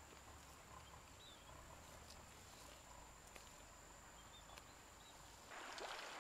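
Faint outdoor ambience: a thin, steady high insect drone with a couple of faint bird chirps and soft clicks. Near the end a louder rustling noise with clicks comes in.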